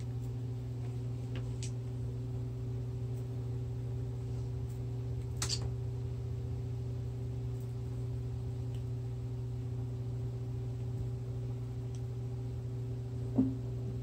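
Steady low hum, with a few light clicks and one sharp knock near the end as a kitten bats a toy about on a tile floor.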